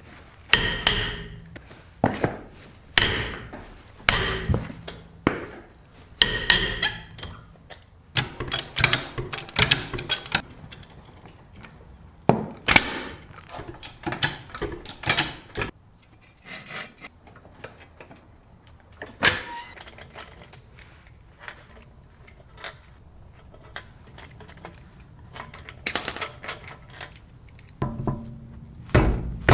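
Irregular thunks and metallic clinks of things being handled in a garage, coming close together at first, then sparser and quieter, with single clicks about two-thirds and nine-tenths of the way through.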